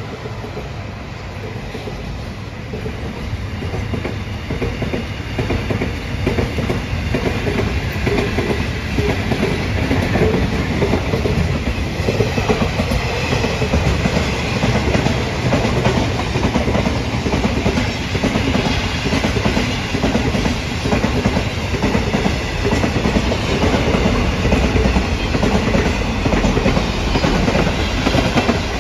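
Freight train's container wagons rolling past, steel wheels clattering over the rail joints in a steady clickety-clack over a rumble, growing a little louder after the first few seconds.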